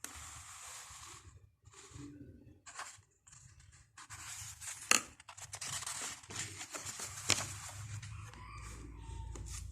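Paper rustling and handling noise with a few sharp clicks, as the pages of a book are handled, and a low rumble coming in near the end.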